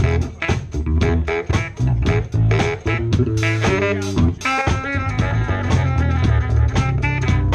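Live funk-jazz band jamming: a drum kit keeps a busy, steady beat over a heavy bass line, with pitched melody instruments playing on top.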